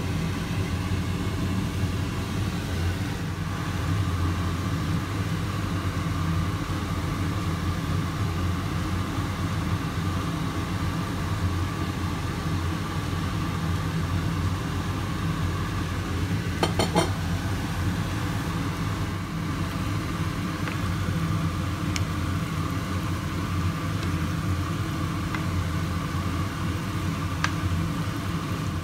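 A steady low mechanical hum, with a short rattling clatter about halfway through and a couple of light clicks later on.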